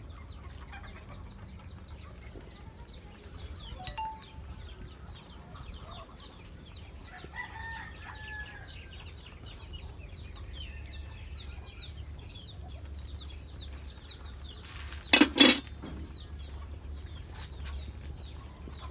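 Chickens clucking, with many short high calls throughout and a rooster crowing once about seven seconds in. A loud double knock about fifteen seconds in stands out above them.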